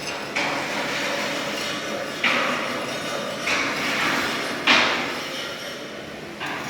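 A series of sharp knocks at uneven spacing, five in all, each trailing off in a hiss over about a second.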